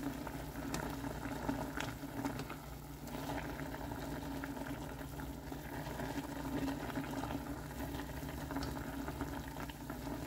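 Water at the boil bubbling steadily in a stainless steel saucepan around a block of instant noodles, with wooden chopsticks stirring the noodles apart in the second half.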